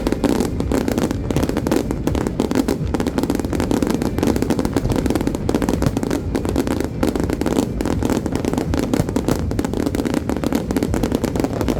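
Fireworks display crackling: a dense, rapid stream of sharp pops that begins abruptly and goes on without a break.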